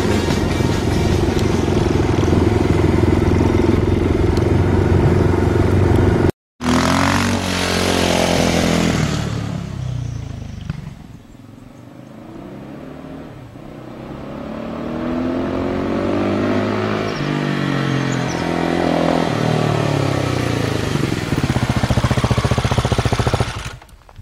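Husqvarna motorcycle engine running steadily, then after an abrupt cut about six seconds in the bike passes with its engine note falling and fades. It comes closer again, the engine note rising and falling, and drops away near the end.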